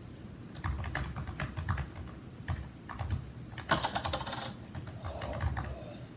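Small plastic headset parts being handled and worked apart: irregular light clicks and taps, with a short scraping rustle a little under four seconds in.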